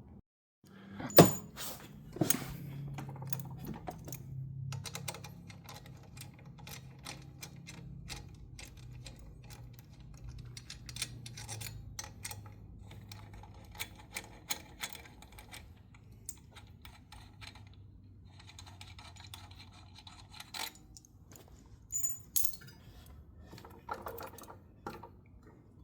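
Metal clinks, clicks and knocks of hand tools and small parts being worked loose from a snowmobile's primary clutch, with a sharp clank about a second in and a low hum underneath.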